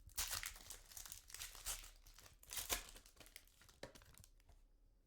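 Plastic wrapping crinkling and tearing as a trading card pack is opened by hand: a run of irregular crackles that thins out and stops about four seconds in.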